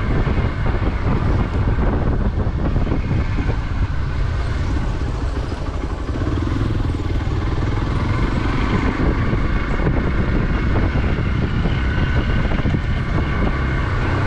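Motorcycle engine running steadily at easy road speed, heard from on the bike, with a heavy low rumble of wind and road noise on the microphone.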